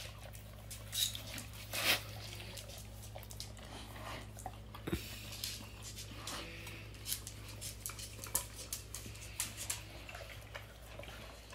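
Basset hound licking out a ceramic food bowl that is nearly empty: irregular wet licks and tongue clicks against the bowl, over a faint steady low hum.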